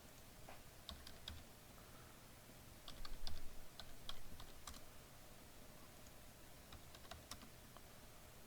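Typing on a computer keyboard to log in: a string of light, irregular key clicks.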